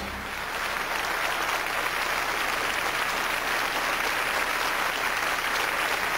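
Concert audience applauding steadily as the soprano's song ends: a dense, even clatter of many hands clapping.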